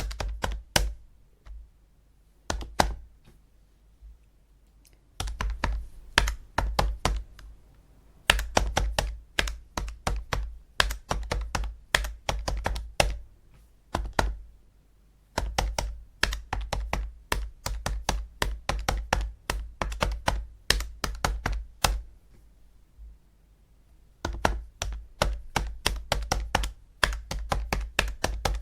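Calculator buttons being pressed in quick runs of clicks, several a second, broken by short pauses.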